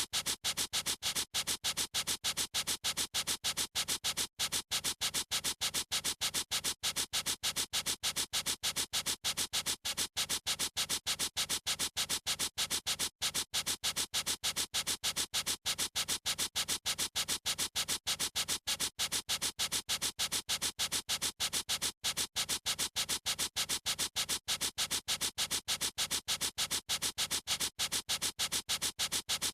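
Marker pen scribbling in quick, even strokes, several a second, repeating steadily without pause.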